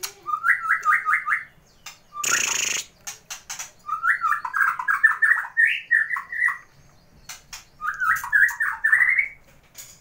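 White-rumped shama singing in its cage: three phrases of quick, repeated rising whistled notes, at about 5 to 6 a second, broken by sharp clicks. A short harsh burst of noise comes about two seconds in.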